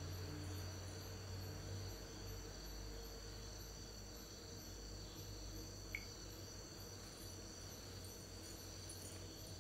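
Crickets chirping at night: a steady high trill with a faster pulsed chirping about twice a second above it, over a low hum. One short click about six seconds in.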